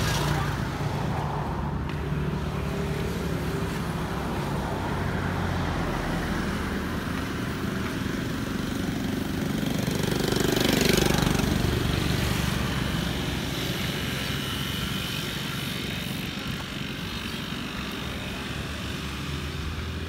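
Road traffic, mostly motorbikes, passing close by with a steady low engine hum. One vehicle goes by loudly about halfway through, its engine pitch dropping as it passes.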